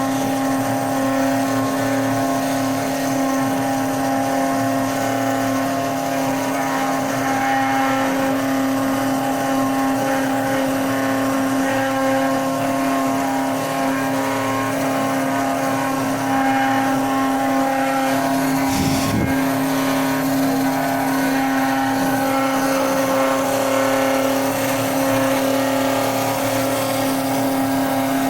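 CNC router spindle running with a steady high whine while milling a printed circuit board, with a brief interruption about two-thirds of the way through.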